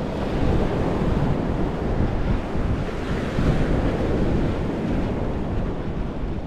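Surf washing onto a beach in a steady rush, with wind rumbling on the microphone.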